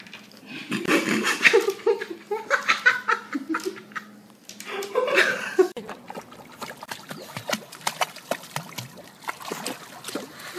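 People laughing in the first half; then, from about six seconds in, water splashing and sloshing as a pug paddles in a swimming pool, a quick run of short splashes.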